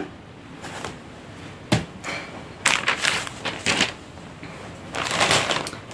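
Plastic shopping bags rustling and crinkling as they are handled, in several short bursts, with a single sharp knock a little under two seconds in.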